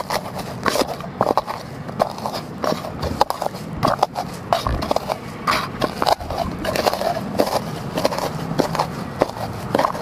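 A piece of wood pounding and crushing shallots, garlic and turmeric in a shallow metal pan: quick, irregular knocks of wood on metal, several a second, mixed with scraping.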